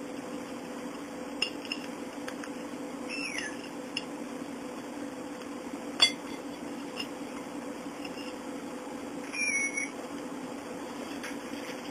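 Cockatiel pecking and nudging plastic toys on a ceramic plate: sparse light clicks and clinks, the sharpest about six seconds in. Two short high calls, one about three seconds in falling in pitch, the other near the end.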